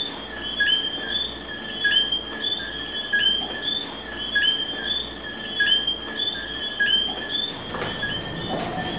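Night ambience of repeated high, whistled chirps, about two a second, several callers overlapping.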